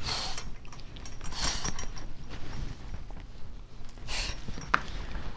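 Handling noises at a grooming table: three soft swishes and a single light click near the end, like a tool being set down on the table top.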